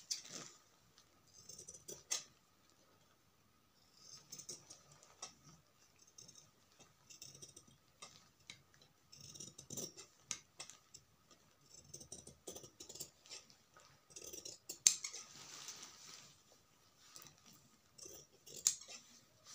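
Large tailor's shears cutting through lining cloth along a chalked line, in runs of short crisp snips separated by pauses.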